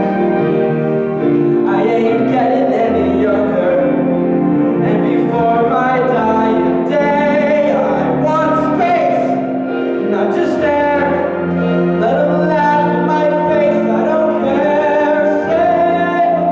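A young male solo voice singing a Broadway show tune, with long held notes and vibrato, over an instrumental accompaniment.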